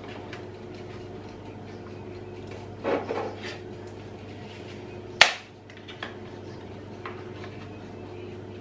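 Dry lasagne sheets being handled and broken by hand over a glass baking dish: a brief crackle about three seconds in, then one sharp snap a couple of seconds later, followed by a few light clicks. A steady low hum runs underneath.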